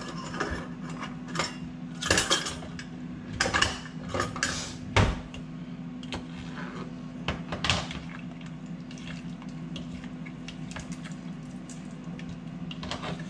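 Metal kitchen utensils clattering, rattled in a drawer and knocked against bowl and cutting board, in a run of sharp knocks and rattles that is loudest about five seconds in and thins to light ticks later. A steady low hum sits underneath.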